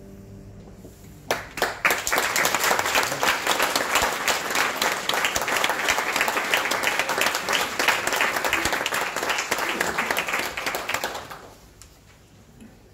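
The last held keyboard chord dies away. An audience then starts applauding about a second in, a dense steady clapping that fades out near the end.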